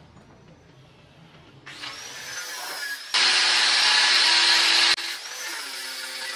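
An electric power tool whirring, unseen in the picture. It starts about two seconds in with a wavering high whine, runs loud and even from about three to five seconds in with abrupt start and stop, then drops back to a quieter whir.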